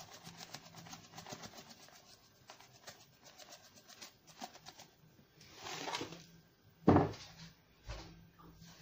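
Sugar being poured into a mixing bowl, heard as rapid faint clicking and rustling of granules, with a swell of rustling about six seconds in and a sharp knock about seven seconds in.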